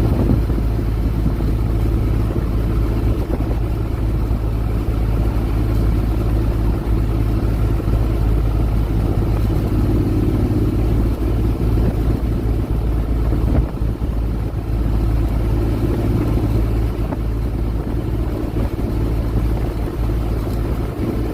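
Honda Forza 750 scooter's parallel-twin engine running steadily at a cruising speed of about 60 km/h, heard as a steady low rumble with no changes in speed.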